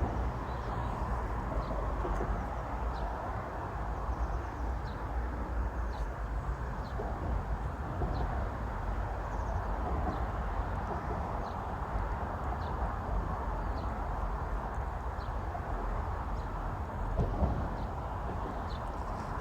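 Outdoor ambience: a steady low rumble with short, high bird chirps every second or two.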